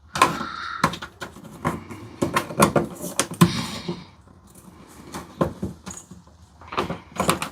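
Irregular clicks, knocks and scrapes of a mini truck's plastic door trim and latch parts being handled and worked against their clips, busiest in the first few seconds and then sparser.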